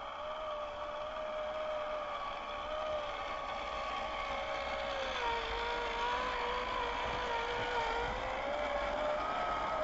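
Scale RC Land Rover Defender 90's electric motor and gear train whining as it crawls through mud, over a steady rushing noise. The whine wavers with the throttle, dipping in pitch midway and rising again near the end, and grows louder as the truck comes up close.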